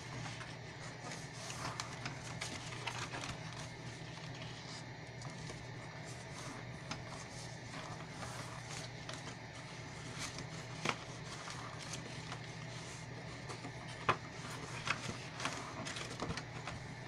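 Scored cardstock being folded along its score lines: faint paper rustling and handling, with a few sharper clicks or taps about 11 and 14 seconds in, over a steady low hum.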